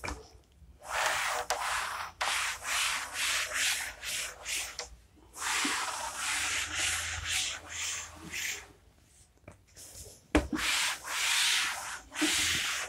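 A cloth wiping chalk off a chalkboard: repeated rubbing strokes, about two a second, each a short hiss, with two brief pauses.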